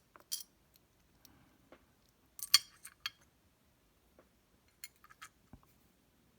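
Small metal lock pins clicking and clinking against a tray as they are handled and set upright: a few light, sharp ticks, the loudest about two and a half seconds in, with another little cluster near the end.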